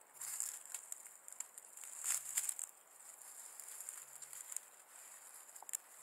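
Dry reed stalks of a common crane's nest rustling and crackling as the crane pokes at its eggs with its bill and shifts its feet on the nest, loudest just at the start and again about two seconds in.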